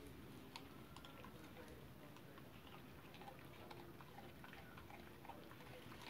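Puppy chewing on a piece of cucumber: faint, irregular small crunching clicks.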